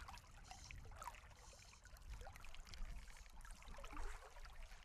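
Faint water ambience: trickling and lapping water with small scattered clicks and gurgles over a low rumble.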